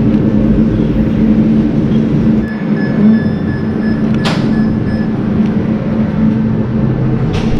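Steady low mechanical hum of a passenger lift car and its doors. For about three seconds in the middle comes a run of short high beeps, and there are two sharp clicks, one near the middle and one near the end.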